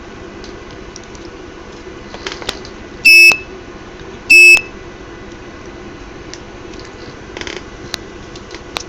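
Electronic buzzer on an ESP32 test board sounding two short, loud, high-pitched beeps a little over a second apart.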